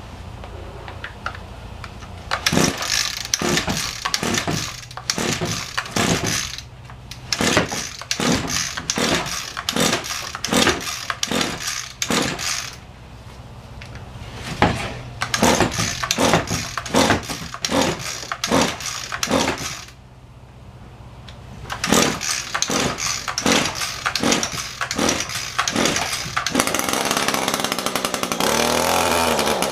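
Two-stroke string trimmer, unused for about three months, being pull-started: four runs of rapid cord pulls, about two a second, each pull a short burst of engine noise, with pauses between runs. Near the end the engine catches and runs steadily.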